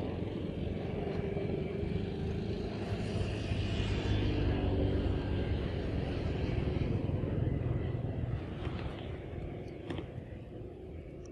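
Low engine rumble of a passing motor vehicle, growing louder through the middle and fading away near the end.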